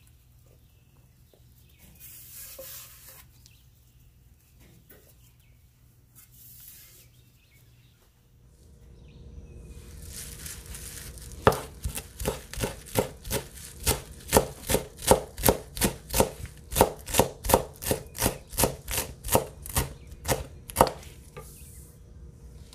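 Chef's knife chopping fresh cilantro on a wooden cutting board: a steady run of sharp chopping strokes, two to three a second, that starts about halfway through and stops shortly before the end. Before it there are only a couple of soft rustles.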